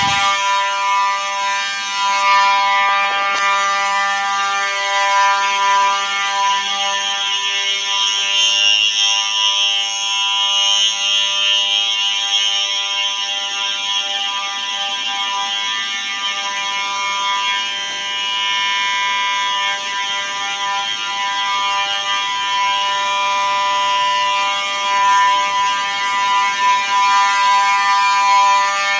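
Simplex fire alarm horns, a 4903-9219 and a 4903-9236, come on at the start and sound continuously with a steady, harsh electronic horn tone.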